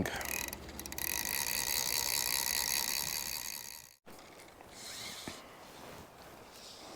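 Fly reel's click-and-pawl ratchet buzzing as line is wound in, a fast steady run of clicks lasting about four seconds, then cut off abruptly.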